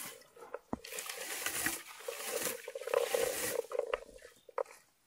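Homemade blueberry comb raked through low blueberry bushes in several strokes a second or so long, its tines rustling through the leaves as berries patter into its hopper.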